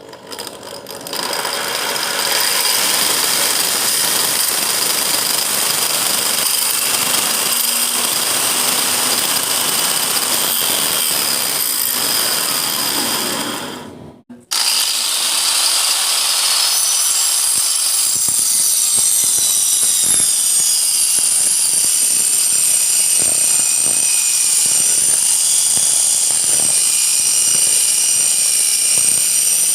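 Angle grinder converted to a circular saw, a wood-cutting blade spinning at high speed with a loud, steady whine. It cuts off sharply about halfway, then runs again, its whine sagging and wavering as the blade takes load cutting through 2 cm plywood.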